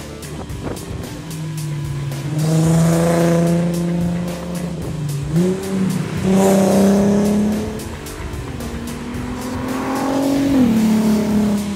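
A race car's engine accelerating hard, its pitch climbing, with a quick gear change about five seconds in and the revs dropping near the end. Background music with a steady beat runs underneath.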